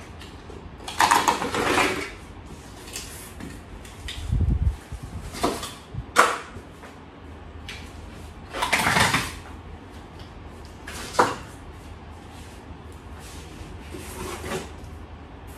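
Cardboard packing rustling and scraping as flat-pack cabinet panels are worked out of their long box, in several separate bursts. A dull thump about four seconds in and two sharp knocks, about six and eleven seconds in, stand out.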